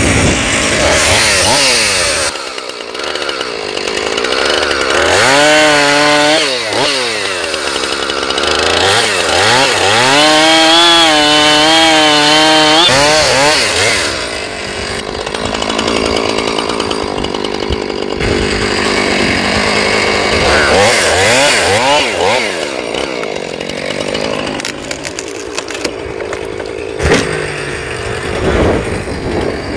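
Husqvarna two-stroke chainsaw cutting through a pine trunk, its revs rising and falling again and again as the chain bites into the wood and eases off.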